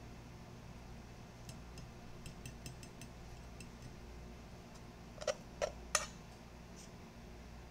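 Utensils and dishware handled while plating food: a run of light clicks, then three sharper knocks in quick succession about five seconds in.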